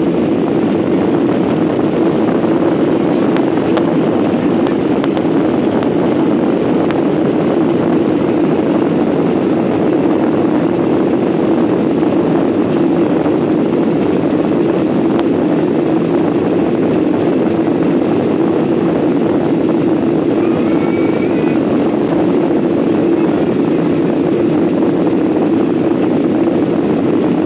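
Steady jet engine noise inside the cabin of a Boeing 737-800 moving on the ground, its CFM56 engines at low, even thrust with no spool-up.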